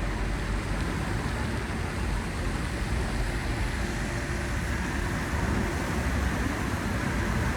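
Steady traffic noise: a continuous low rumble of passing road vehicles with no distinct events.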